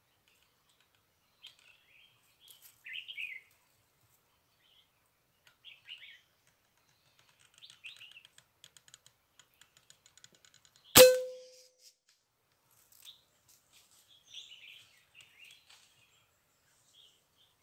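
Small birds chirping in short scattered calls, and about eleven seconds in a single sharp crack of a PCP air rifle shot, with a short ringing tone that dies away after it.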